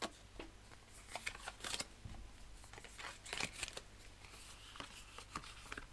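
Cartomancy cards being handled and shuffled by hand over a cloth mat: faint, scattered short flicks and slides of card stock.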